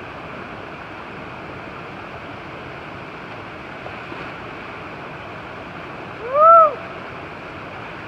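Waterfall and stream water rushing steadily. About six and a half seconds in comes a short, loud call that rises and then falls in pitch.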